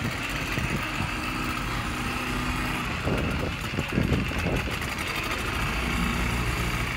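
Twin outboard motors on a speedboat running as the boat pulls away from the dock, with louder, rougher surges of low rumble and churning about three to four and a half seconds in.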